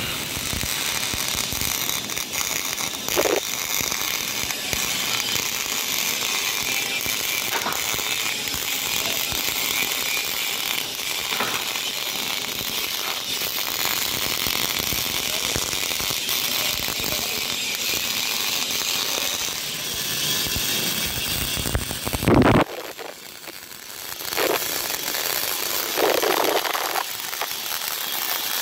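MIG/MAG welding arc on steel square tubing, crackling steadily as the wire feeds. About three-quarters through the arc stops for a couple of seconds, then strikes again.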